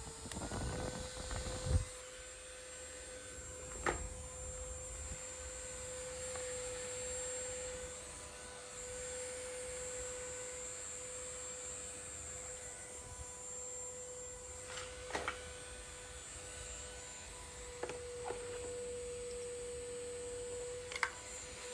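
A small electric motor hums steadily at one even pitch, with a few light clicks and taps over it.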